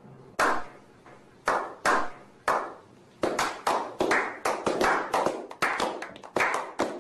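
A small group clapping by hand: a slow clap of a few single claps spaced out at first, which about three seconds in quickens into steady, overlapping clapping.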